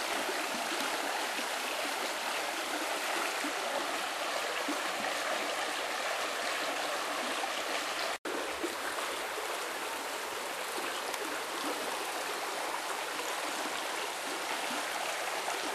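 Steady rushing of a river flowing under a railway bridge, broken by a brief total dropout about eight seconds in.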